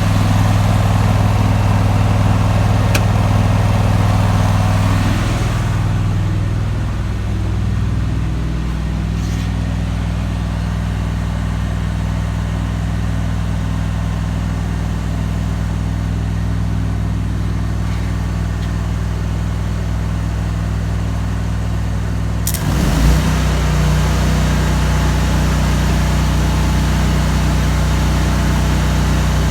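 Engine-driven welding generator running while a 3/16-inch 5P+ stick rod burns with a crackling arc. About six seconds in the arc stops and the engine note glides down. About 23 seconds in a sharp strike brings the arc crackle back and the engine note changes as it takes up the load again.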